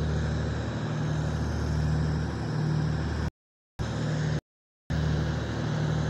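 A steady low engine-like hum under a noisy hiss, cut twice by short gaps of total silence, about three seconds in and again a second later.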